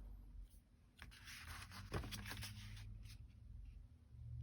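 Faint taps and paper rustles of a rubber stamp being inked and pressed onto card stock, with one sharper tap about two seconds in.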